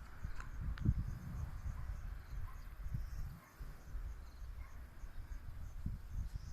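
Insects chirping faintly, with high chirps repeating at an even pace, over a steady low rumbling noise.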